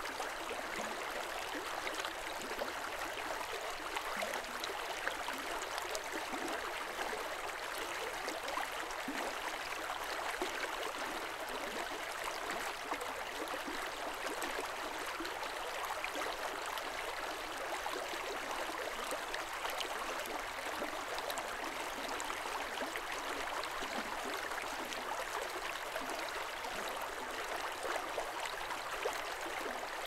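Mountain stream of snowmelt water flowing over its bed: a steady rush of running water with fine splashing ticks, and no deep rumble.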